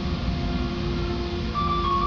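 Vario LF2 plus tram running with a low rumble and a steady hum. About one and a half seconds in, an onboard chime begins, its notes stepping down in pitch, signalling a passenger announcement.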